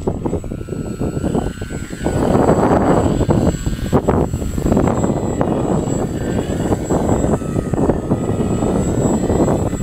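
Strong gusty wind buffeting the microphone, with the thin whine of a small radio-controlled airplane's propeller drifting up and down in pitch underneath.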